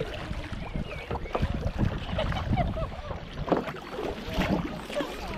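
Double-bladed kayak paddles dipping and pulling through lake water in irregular strokes, with splashing and dripping from the blades, over a low wind rumble on the microphone.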